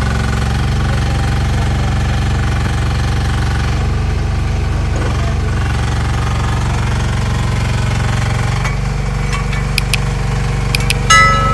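Small diesel engine of a 1-ton mini excavator running steadily under working load with a fast, even chugging pulse. Near the end come a few sharp metallic clanks and a brief squeal.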